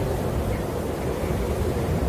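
Snowstorm wind blowing steadily: an even, deep rushing noise with its weight low down and no gusts or breaks.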